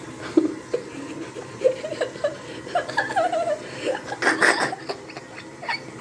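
A person chuckling and snickering in short bursts, with a louder breathy laugh about four seconds in.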